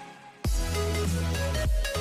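Electronic dance music with a heavy bass line; the bass drops out briefly, then comes back with a sharp hit about half a second in.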